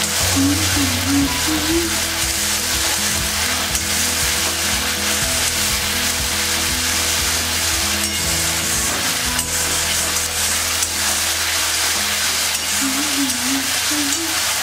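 Onion-tomato-ginger-garlic masala paste sizzling in a metal kadai over a gas flame, stirred and scraped with a spatula, with scattered ticks of the spatula against the pan. The masala is being fried down (bhuna) before the chickpeas go in.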